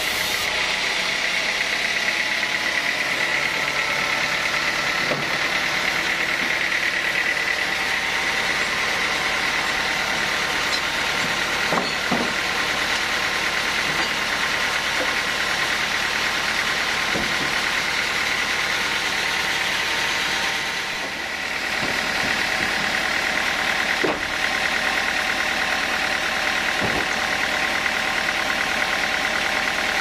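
Sawmill machinery running steadily with a high whine, broken by a few sharp knocks as teak slabs and logs are handled on the carriage.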